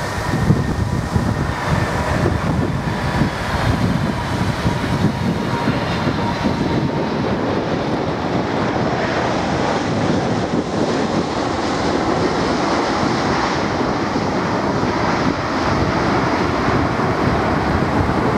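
Boeing 747-400 freighter's four jet engines during landing: a steady whine that fades over the first several seconds, then a broad rush of engine noise that grows louder through the rollout on the wet runway. Wind buffets the microphone.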